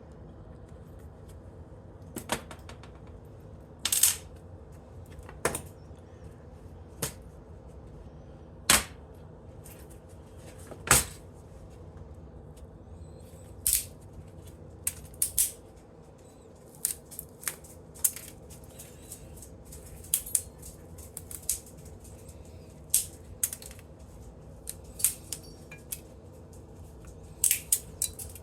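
Sharp clicks and clinks of small metal scrap pieces and hand tools being handled while an old electric organ is stripped for aluminum, brass and copper. They come irregularly, a few in the first half and more often later, over a steady low hum.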